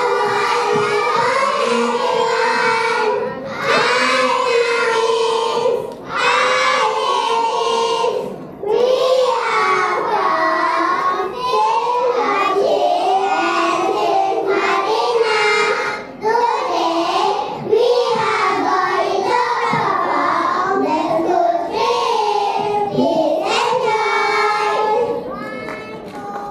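A group of young children singing a song together over musical accompaniment, in sung phrases a few seconds long with short breaks between them.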